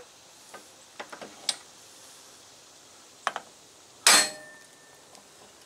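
Hammer striking a driveshaft U-joint yoke held in a bench vise, to drive the U-joint bearing cap down. A few light metallic clicks come first, then two sharp knocks, then one hard blow about four seconds in that rings briefly.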